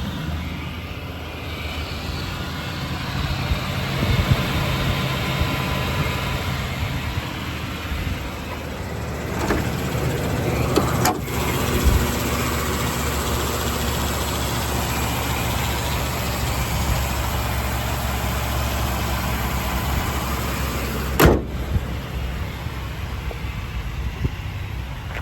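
Ford F550 truck engine running steadily at idle, with two sharp clicks, about 11 and 21 seconds in.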